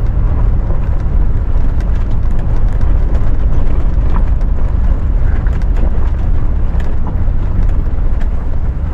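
Four-wheel-drive vehicle driving up a rough, rocky dirt trail: a loud, steady low rumble of engine and tyres, with scattered faint clicks and knocks.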